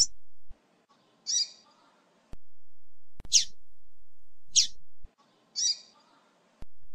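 Female double-collared seedeater (coleiro) giving short, high call notes, five in all, roughly a second apart; two are quick downward-sweeping chips and the others are buzzier notes.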